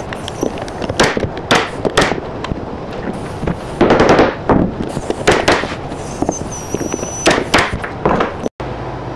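Staple gun driving staples into OSB: a series of sharp shots, often two in quick succession, with a longer knocking clatter about four seconds in.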